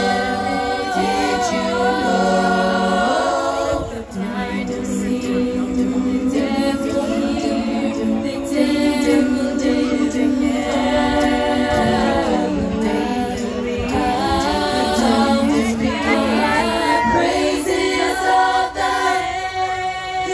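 A women's vocal group singing together into handheld microphones, amplified through the stage speakers, with long held notes.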